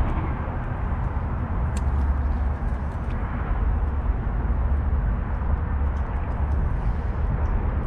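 Steady low rumble and hiss of wind buffeting the microphone, with a few faint ticks.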